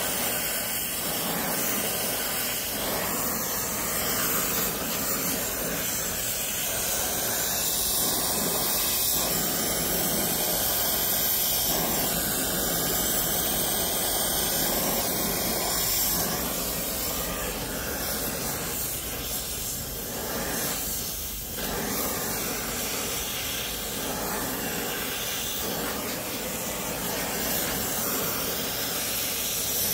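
Brazing torch flame hissing steadily as it heats a copper pipe joint.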